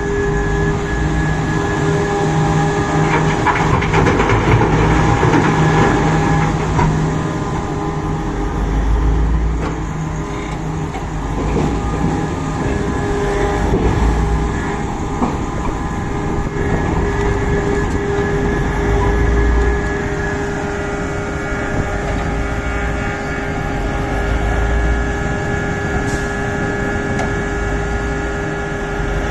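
Komatsu PC4000 mining excavator running under load, its engine and hydraulics droning steadily and surging in deep swells every few seconds. Harsh scraping and grinding of the bucket against solid rock is loudest from about three to seven seconds in.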